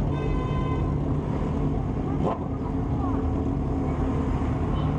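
Motorcycle and car engines running in a slow procession, a steady low rumble. A short, clear high tone sounds near the start, and a single sharp knock comes a little after two seconds in.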